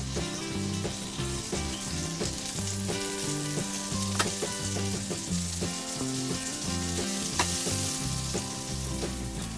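Egg-battered bread rolls sizzling steadily as they fry in butter in a pan on a medium flame, with two sharp clicks, one about four seconds in and one about seven seconds in.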